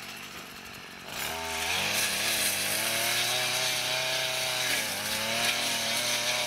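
Brush cutter fitted with a three-lobed blade, its small engine running at high revs while mowing tall grass. It comes up loud about a second in, holds a steady high pitch, dips briefly past the middle and picks up again.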